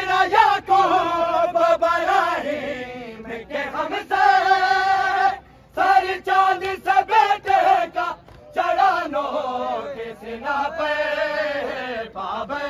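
A group of men chanting an Urdu noha, a Muharram lament, together in phrases, with short breaks between the lines.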